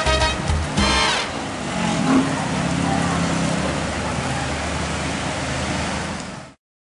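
Music with a steady beat breaks off about a second in, giving way to street noise: traffic on a rain-wet road with a steady hiss and some voices. The sound cuts off abruptly near the end.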